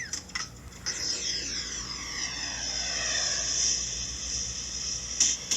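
Rocket-thrust sound effect: a steady hiss with sweeping, falling tones, like a jet passing, then a sharp knock near the end.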